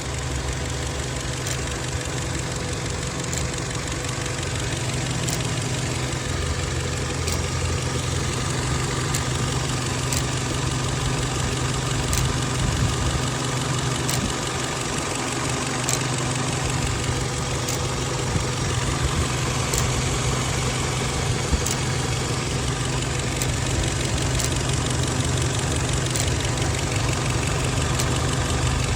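Turbocharged 1.8 TSI third-generation (EA888) four-cylinder petrol engine idling steadily, with faint sharp ticks recurring every second or two. It is recorded for an extraneous noise its owner is trying to identify.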